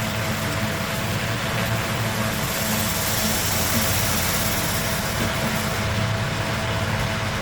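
Steady mechanical hum with a constant faint whine over it, running evenly without a break.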